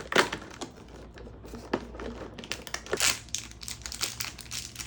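Cardboard advent-calendar door being pushed open and the packaging handled: a string of crinkles, taps and rustles that get denser about halfway through.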